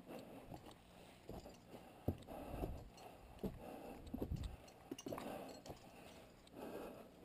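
Faint footsteps over roots, pine needles and wet rock, with scattered knocks and short rustles of clothing and climbing gear as a hand reaches for the rope.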